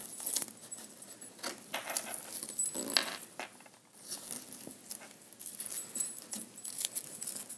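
Adhesive vinyl stencil lettering being picked at with fingernails and peeled off a wooden sign through a coat of dried paint. It makes irregular soft crackling, ticking and rustling.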